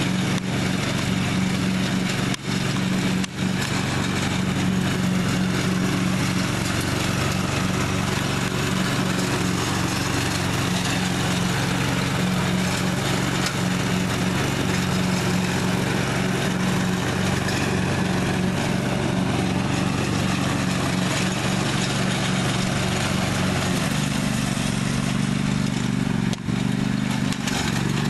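1998 Husqvarna riding lawn mower's engine running steadily while mowing, its note changing near the end.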